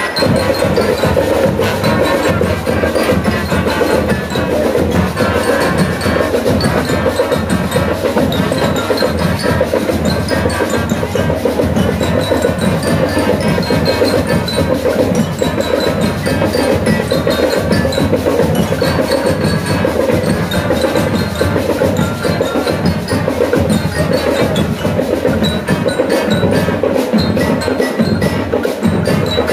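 School marching band playing: trumpets and saxophones carry the tune over a steady marching drum beat, with short high ringing notes on top.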